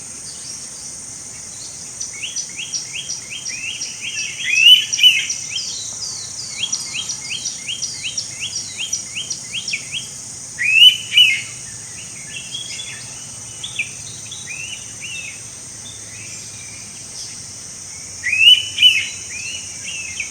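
Indian pitta giving its loud two-note whistled call three times, several seconds apart, each note rising then dropping. Between the first two calls another bird sings a quick run of short falling notes, over a steady high insect drone.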